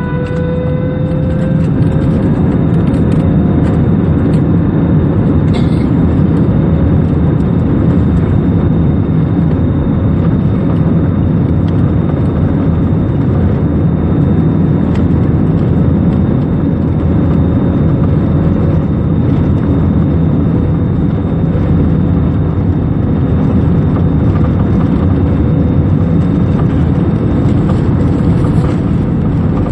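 Aeroplane engines at take-off power: a loud, steady rumble with a whine that rises in pitch at the start and then holds level.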